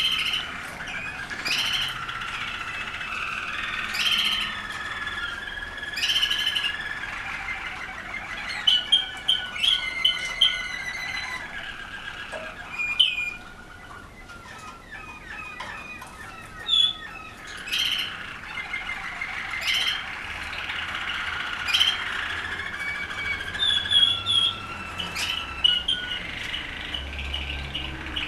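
Caged domestic canaries singing: a long warbling song of rapid trills and rolls, broken by loud sharp chirps.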